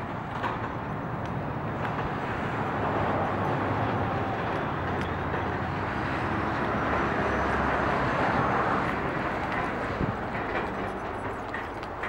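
Steady outdoor rumble and hiss, swelling a little in the middle, with a few faint clicks.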